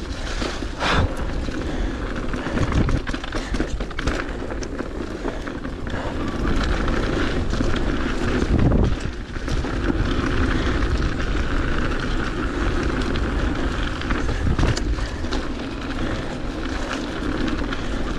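Mountain bike rolling fast down a dirt and gravel trail: steady tyre noise and low rumble, with the bike rattling and knocking sharply over bumps several times.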